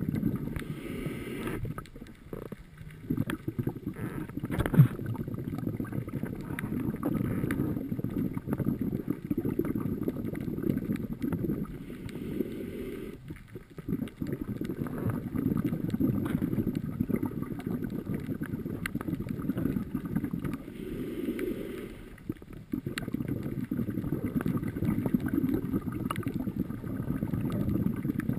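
Underwater sound of a scuba diver breathing through a regulator: long stretches of low bubbling rumble from exhaled air, broken three times by a brief pause. A single sharp knock about five seconds in.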